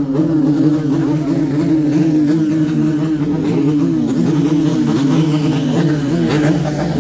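Motorcycle engines held at high revs in a revving contest: a loud, steady droning note, with other engines rising and falling in pitch over it.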